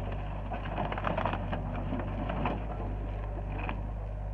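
Hyundai 60 excavator's diesel engine running steadily while its bucket crushes demolition debris of wood and sheet panels, a run of cracking and snapping, loudest about a second in.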